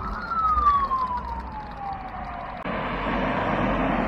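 Norwegian police car siren sounding one slow wail, rising briefly and then falling steadily. About two and a half seconds in it cuts off abruptly to a steady rushing noise.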